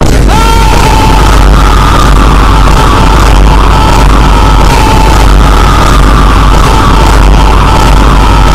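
Blast of extremely loud, heavily distorted music, clipped at full level, with a wavering high whine on top. It starts abruptly and stays at the same level.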